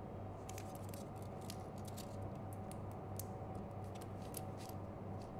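Faint scattered clicks and crinkles of gloved fingers pressing and smoothing insulating tape down over a mod driver board inside an iPod's plastic back panel, over a steady low hum.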